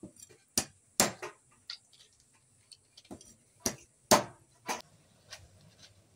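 A large chopping knife striking a wooden chopping block in sharp, irregular knocks, cutting the tail tips off siput sedut freshwater snails. A quick run of chops comes about a second in, then a pause, then another run around four seconds in.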